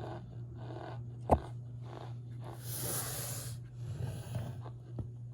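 Cornstarch crunching and squeaking in soft, regular bursts about twice a second, with a sharp click about a second in and a short hissing rush near the middle.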